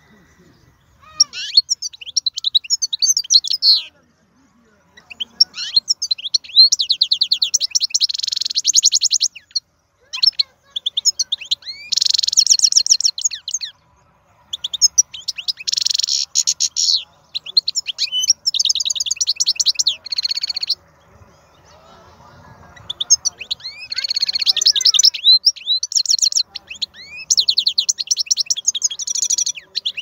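Wild-caught European goldfinch singing: phrases of fast twittering, trills and rapidly repeated notes in loud bursts, broken by short pauses.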